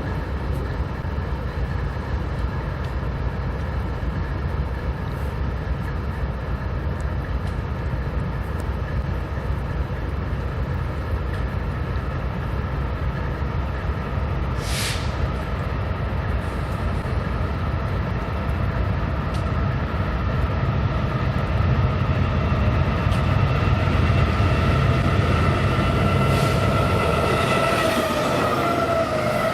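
BNSF freight train rolling past with a steady low rumble. A whine of several tones grows louder over the last few seconds and drops in pitch at the very end. A single short high squeak comes about halfway through.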